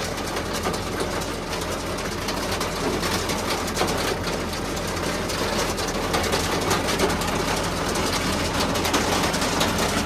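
Tractor engine running steadily under load while the towed feed-out wagon's conveyor rattles and clatters continuously, unloading chopped maize silage onto the pasture.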